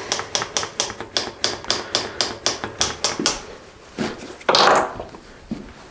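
Bicycle rear freewheel ticking steadily, about five clicks a second, as the wheel spins with the cranks still, then a short loud rasp about four and a half seconds in.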